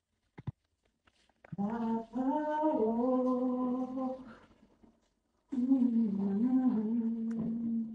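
A woman humming a slow tune in two long held phrases, the first starting about a second and a half in and the second about five and a half seconds in.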